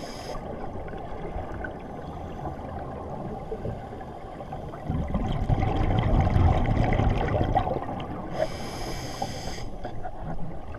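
Scuba diver breathing through a regulator, heard muffled through the camera's underwater housing: a long stretch of rumbling exhaust bubbles in the middle and a hissing inhalation through the regulator near the end.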